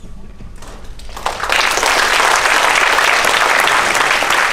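Audience applause, breaking out about a second in and keeping up steadily.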